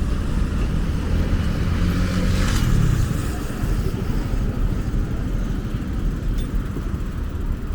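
Steady low rumble of wind buffeting the microphone during a bicycle ride, with a brief swell about two to three seconds in.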